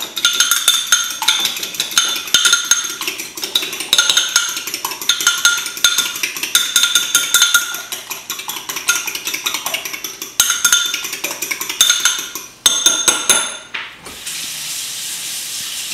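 Eggs being beaten by hand in a ceramic bowl: quick runs of clinking strokes of the utensil against the bowl, each stroke ringing briefly, with short pauses between runs. About fourteen seconds in the beating stops and a steady hiss takes over.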